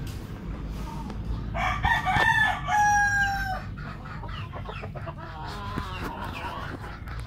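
Rooster crowing once, a loud call of about two seconds starting about a second and a half in, its long held final note falling slightly in pitch. Softer short clucks follow.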